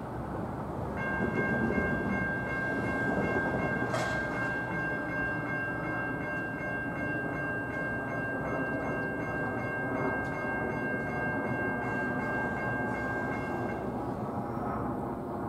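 Approaching NJ Transit GP40FH-2 locomotive's air horn sounding one long steady multi-note chord for about thirteen seconds, heard at a distance over the low rumble of the oncoming train. A single sharp click comes about four seconds in.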